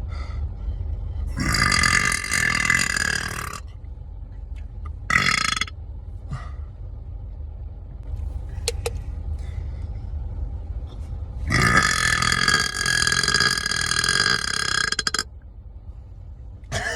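A man burping three times: a long burp about a second in, a short one a few seconds later, and a second long one lasting three to four seconds from about the middle.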